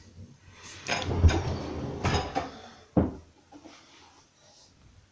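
A kitchen cabinet door being fitted on its hinges: clunks and clicks of the door and hinge arms being handled. The sharpest knock comes about three seconds in.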